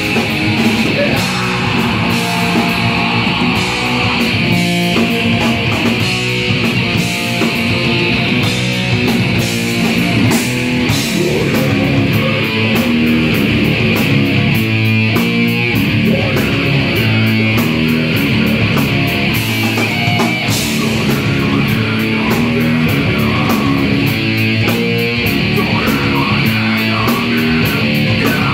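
Live punk/heavy rock band playing loud: electric guitar and bass guitar over a drum kit, with cymbals struck throughout.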